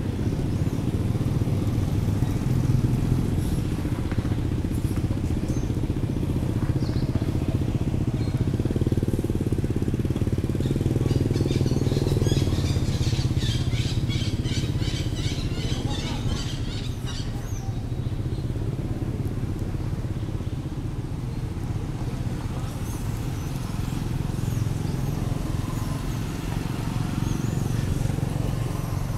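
Low, steady drone of a motor vehicle engine running. Midway, a rapid high-pitched chirping trill comes in for several seconds.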